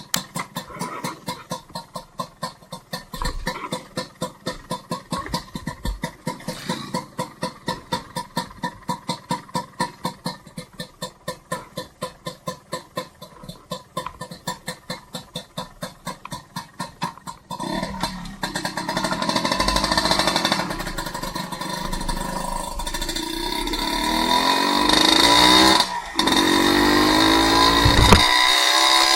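Motor vehicle with a rhythmic pulsing, about two to three beats a second. About two-thirds of the way in it pulls away, and engine and road noise build as the engine revs up with rising pitch.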